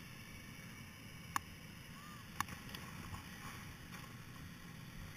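Quiet outdoor background with a faint low rumble, broken by two sharp clicks about a second apart and a few fainter ticks.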